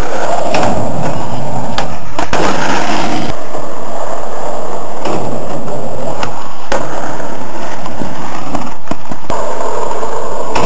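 Skateboard wheels rolling loudly across the skatepark, with sharp clacks of the board hitting the ground several times.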